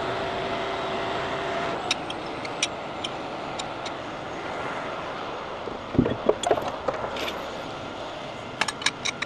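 Rotator tow truck running steadily, with a steady whine that stops about two seconds in. Over it, metal clinks and clanks of chains and rigging being handled and unhooked, with a heavier thud about six seconds in and a quick run of clinks near the end.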